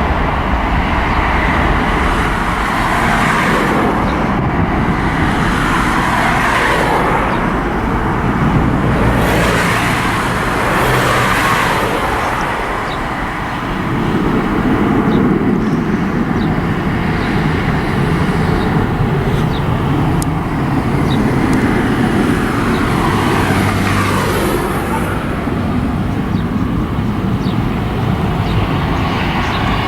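Road traffic: a steady rush of cars passing close by, swelling and fading as individual vehicles go past several times.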